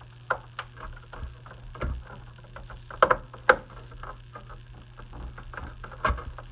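HDMI cable plug fumbled against a TV's rear port and panel: irregular plastic clicks, taps and scrapes as it misses the socket, with two sharper knocks about halfway through.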